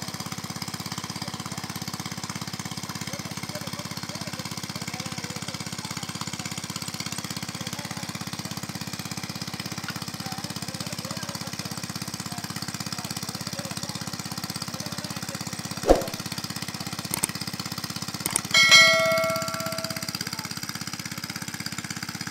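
A small engine running steadily with an even, rapid pulse. About three-quarters of the way in, a sharp knock, then a short metallic ring like a struck bell that fades over about a second.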